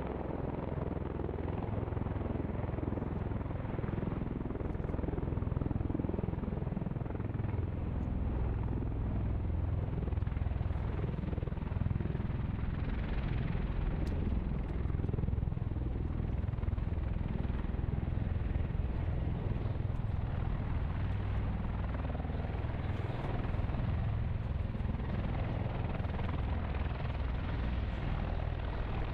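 US Marine MV-22 Osprey tiltrotor aircraft running, its rotors and engines making a steady low drone.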